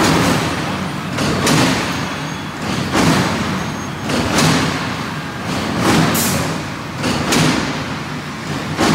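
Gabion mesh machine running, with a loud clattering surge of mechanical noise about every one and a half seconds as it cycles through its wire-twisting strokes.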